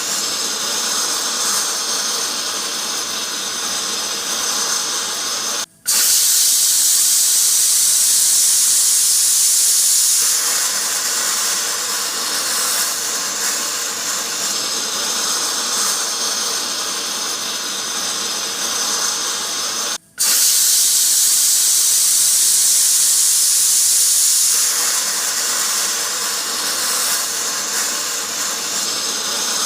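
Pressure cooker steam hissing steadily from its vent. Twice the hiss cuts out for an instant, then comes back louder and higher for about four seconds before settling.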